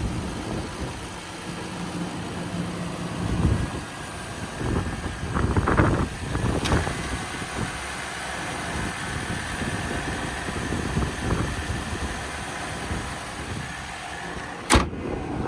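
Lexus GX470's 4.7-litre V8 idling steadily, with a few louder swells. A single sharp bang near the end.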